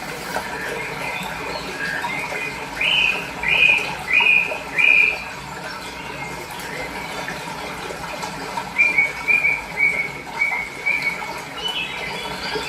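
Small birds chirping in runs of short repeated notes, four loud ones and later a quicker series of about six, over a steady rush of flowing water.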